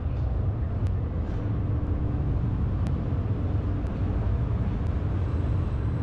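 Calgary Transit CTrain light-rail train running past a station platform: a steady low rumble with a faint hum, a few light clicks, and a faint high whine near the end.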